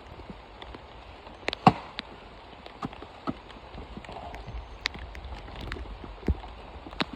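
Irregular sharp knocks and taps of coconut shells being cracked, split and worked for their meat, over a steady hiss of rain.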